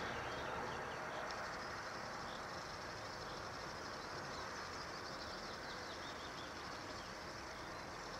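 Distant birds chirping and singing over steady outdoor background noise. The noise of a passing vehicle fades out in the first second or so.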